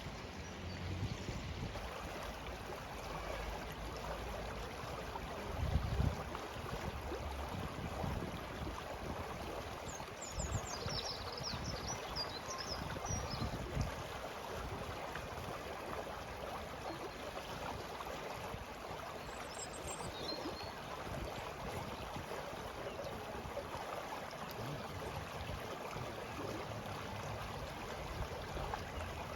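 A stream flowing with a steady rush of water. A bird chirps a quick run of high notes about ten seconds in, and briefly again around twenty seconds.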